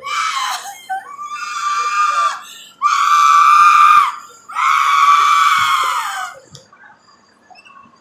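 A young woman screaming in four long, high-pitched cries, the last two the loudest, as a security guard squeezes the back of her neck.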